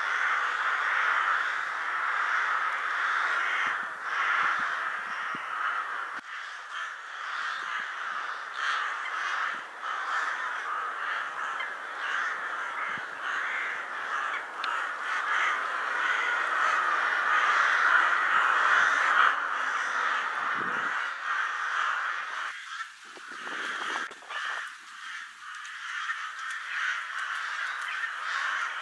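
A large flock of rooks calling together at a pre-roost gathering: a dense, unbroken chorus of many overlapping caws. It thins briefly about three quarters of the way through.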